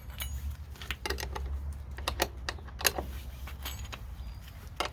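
Irregular metallic clicks and clinks of a wrench on the bolt, washers and nut of a striper-kit bracket as it is tightened, over a low steady rumble.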